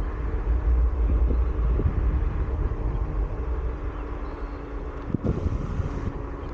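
Onewheel Pint electric board rolling over asphalt: a steady low rumble from the tyre on the road, with a faint steady hum from the hub motor. A short knock about five seconds in.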